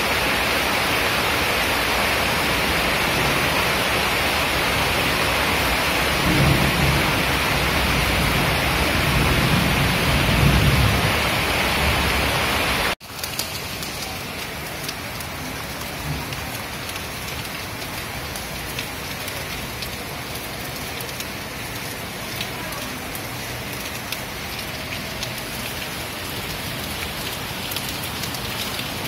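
Monsoon rain falling steadily, with two low rolls of thunder in the first half. After a sudden cut about halfway through, the rain is quieter, with fine close drips ticking in it.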